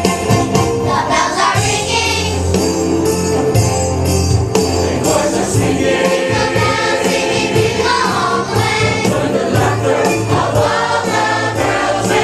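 Choir singing an upbeat gospel-style Christmas song with instrumental accompaniment, and jingling percussion keeping a steady beat.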